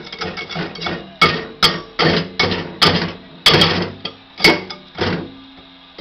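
A stick tapping and prodding at a CD melted onto a microwave's glass turntable: a run of about ten sharp, irregular knocks that starts about a second in and stops about a second before the end.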